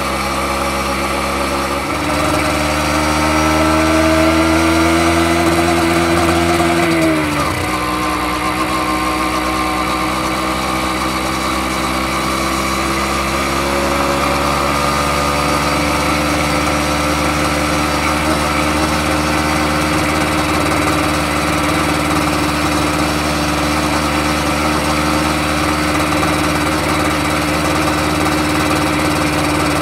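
Honda MB50's 49cc two-stroke single-cylinder engine running under way. Its note climbs for several seconds, drops sharply about seven seconds in, then holds steady at a cruising pace.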